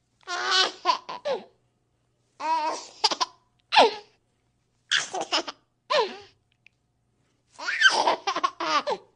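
Baby laughing: four short bouts of high-pitched giggling, each a second or so long, separated by gaps of dead silence.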